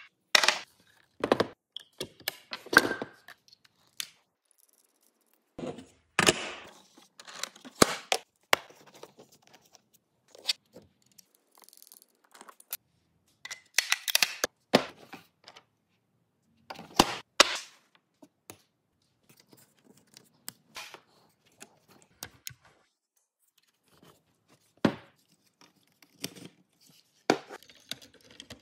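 Handling noise from a Festool Domino DF 500 joiner and its plastic Systainer case: irregular clicks, knocks, scrapes and a few sharp snaps as the tool is lifted out and a trim stop is clipped onto its front. The joiner's motor does not run.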